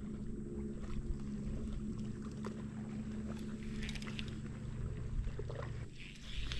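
Bass boat's electric trolling motor running with a steady hum, dropping out briefly near the end, with a few light clicks on board.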